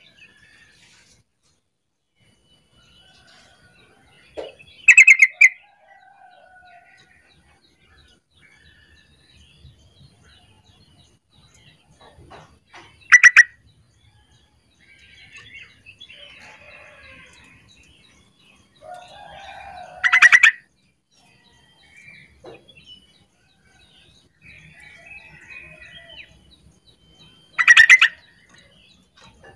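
Yellow-vented bulbul (trucukan) calling: four short, loud, harsh calls about seven to eight seconds apart, with softer chirps between them.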